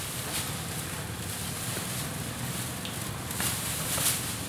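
Dry grass thatch rustling and crackling as a thatch panel is handled and laid over a bamboo frame, with a few louder crackly rustles about half a second in and again near the end, over a steady low hum.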